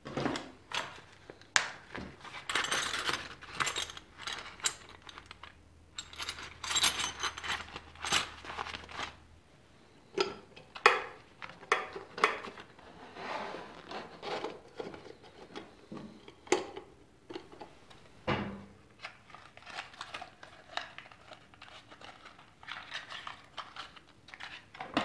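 Hands handling small motorcycle parts and their packaging at a workbench: rustling and crinkling of plastic bags and boxes, with many light clicks, taps and clinks of small metal and plastic parts being picked up, set down and fitted.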